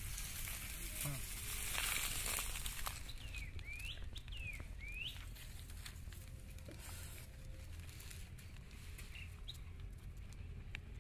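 A bird calling four times in quick swooping notes, each falling then rising in pitch, about three seconds in. Before it comes a rustling hiss that swells and fades, and light clicks are scattered throughout.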